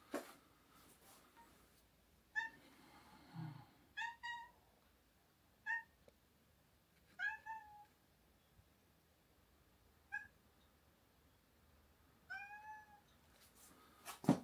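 Domestic cat meowing repeatedly, short calls every second or two, the longest near the end with a falling pitch: a cat crying at the front door to be let out. A sharp knock at the start and a louder click just before the end.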